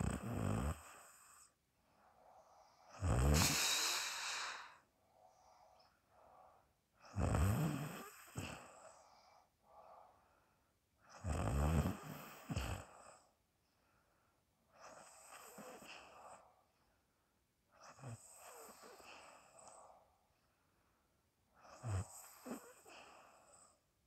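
A sleeping person snoring in slow, regular breaths, one snore about every four seconds. The first few snores are loud and the later ones fainter.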